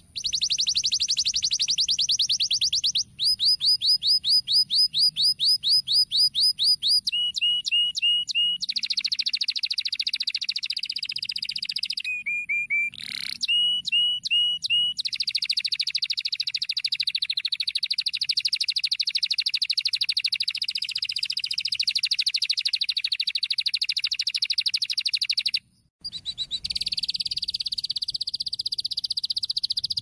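Brown Norwich canary singing a long song of fast trills and runs of repeated notes, changing every second or two, with a few short breaks.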